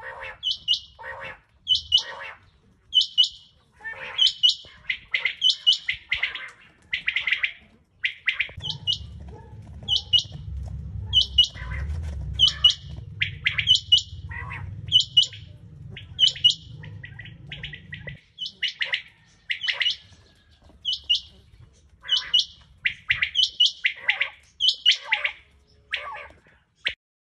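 Caged rain quail calling over and over in quick runs of short, sharp, high notes. A low steady hum sits underneath from about 8 to 18 seconds in.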